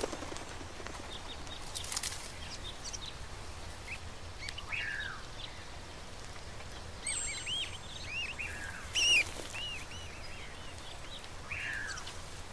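Small birds chirping: scattered short chirps, with a cluster of them in the middle and a few downward-gliding calls, over a steady low background hum. There is a brief burst of noise about two seconds in, and a louder, short one about nine seconds in.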